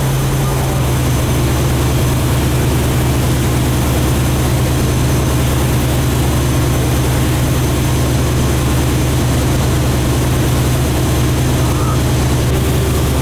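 Motorboat engine running steadily at speed, a constant low drone under an even rushing noise.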